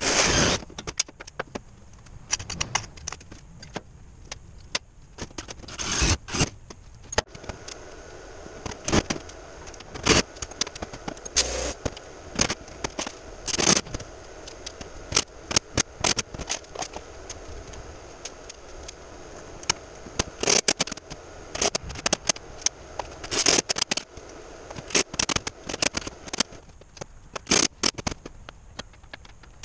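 Screws, a metal plate and a cordless drill being handled on a metal workbench: irregular clinks, clatters and scrapes of metal on metal.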